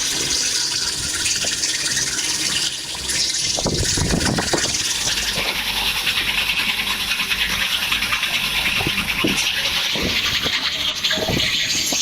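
Homemade chainsaw machine with a quiet motor cutting through birch logs: a steady hiss of the chain in the wood, with a few knocks of the logs shifting.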